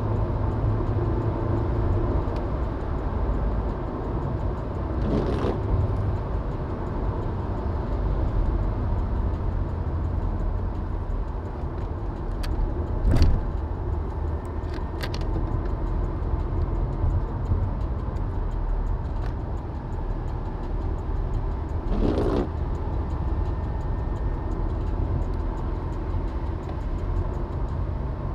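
Car driving on rain-wet roads: a steady low rumble of engine and tyres. There are two brief swells of hiss, about 5 and 22 seconds in, and a few sharp clicks, the loudest about 13 seconds in.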